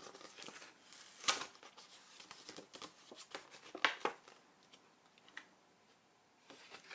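Stiff card envelope being handled, unsealed and unfolded: faint paper rustling and sliding, with a few sharper crackles about a second in and around four seconds.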